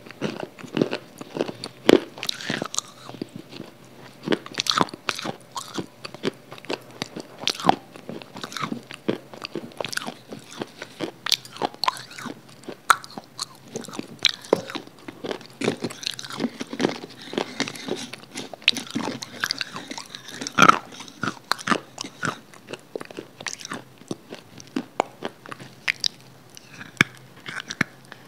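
Mouth eating sounds close to a microphone: steady chewing with wet lip smacks and sharp clicks, several a second, a few louder than the rest.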